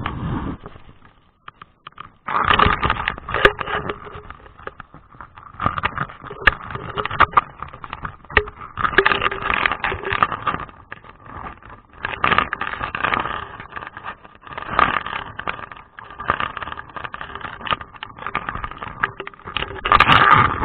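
Underwater camera audio in a rock pool: irregular crackling, clicking and scraping from water movement and the camera's handling. There is a brief lull about a second in.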